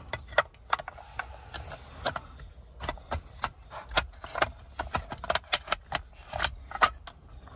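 Irregular clicks, taps and light knocks of a UConnect radio's aluminium housing and circuit-board assembly being handled and pressed together by hand.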